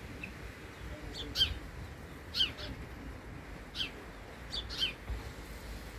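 House sparrow chirping: short, sharply falling cheeps, given in about four bursts a second or so apart, several of them doubled.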